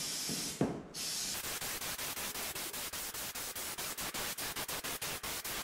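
Aerosol can of spray glue hissing as it sprays. After about a second the hiss turns into a fast, even sputter of roughly six pulses a second.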